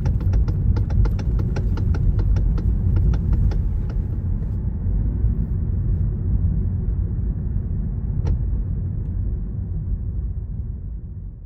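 Road and cabin rumble of a 2013 Lexus CT200h driving, with a rapid clicking rattle, about five clicks a second, that stops about four seconds in and recurs once later. The rattle comes from the steering, the sign of a worn-out plastic damper on the electric power steering motor shaft.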